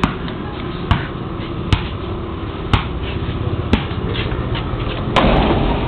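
Basketball being dribbled slowly: four single bounces about a second apart. A louder rush of noise starts about five seconds in.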